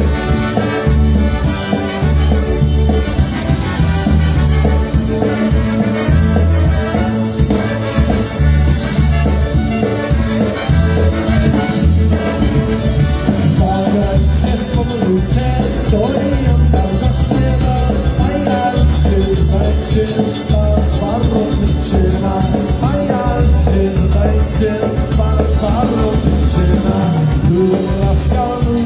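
Live polka band with brass and clarinet playing a tune, over a steady pulsing bass beat.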